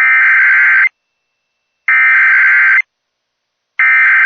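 Emergency Alert System SAME header: three identical bursts of data-modem screech, each just under a second long and about a second apart. These are the digital codes that open an EAS alert, here a tornado warning.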